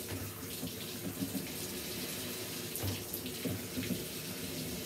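Water running from a hand-held shower hose over a Pomeranian in a plastic tub, rinsing its coat, with a few light knocks.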